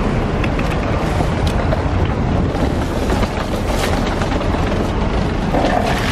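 Chestnuts being poured from a wooden bucket clatter into a large iron wok of hot roasting sand, as scattered sharp clicks. A steady low rumble of street noise runs underneath.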